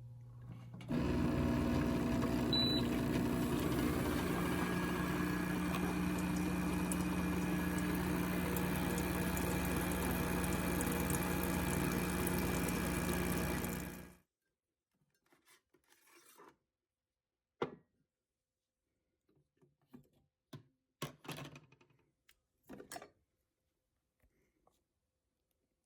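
A household appliance running with a steady mechanical hum for about thirteen seconds, then cutting off abruptly, followed by a few faint clicks and knocks.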